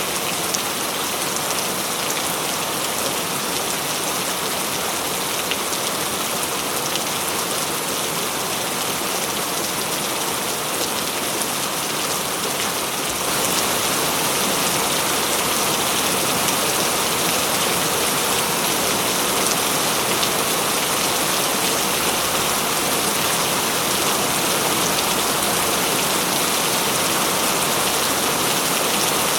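Heavy rain falling steadily as a dense, even hiss, turning a little louder and fuller about halfway through.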